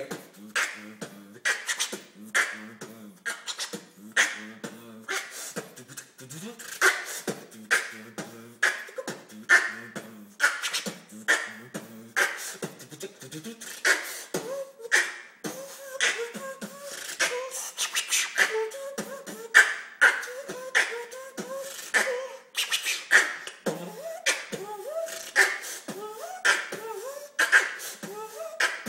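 Beatboxing with a hand cupped at the mouth: sharp mouth-made snare and hi-hat clicks in a steady beat, with hummed, wavering pitched tones running underneath.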